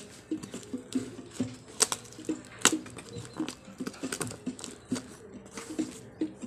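Kitchen knife cutting and scraping along the packing tape of a cardboard parcel, with irregular sharp clicks and rustling of the box.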